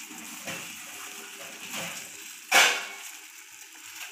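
Water with avaram flowers boiling in a stainless steel saucepan, bubbling steadily as the flower tea brews. A brief, loud burst of noise comes about two and a half seconds in.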